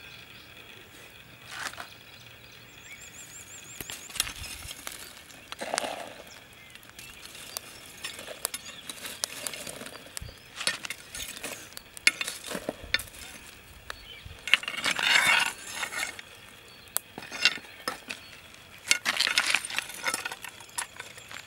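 Lumps of charcoal and embers clinking and scraping as a machete blade pushes them over a banana-leaf parcel in a fire pit. Scattered sharp clicks throughout, with two longer rasping scrapes in the second half.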